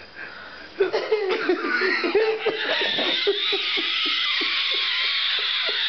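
Hearty, breathy laughter that starts about a second in and settles into rapid ha-ha-ha pulses about five a second, then cuts off suddenly at the end.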